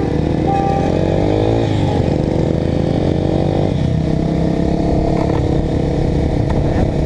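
Honda Twister motorcycle's single-cylinder engine running under a rider, its pitch climbing twice and dropping back each time, as it accelerates through the gears.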